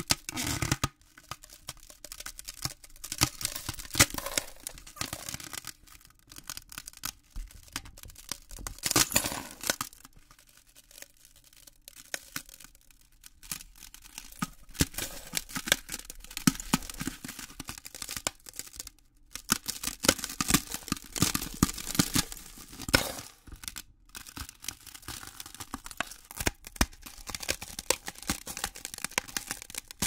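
Ice cracking: an irregular run of sharp cracks and crackling snaps, coming in clusters with a few short quieter pauses.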